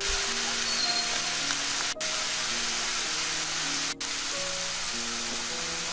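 Soft background music of held notes over the steady sizzle of an onion, green chilli, ginger and garlic paste frying in oil in a pan, with the sound cutting out very briefly twice, about two and four seconds in.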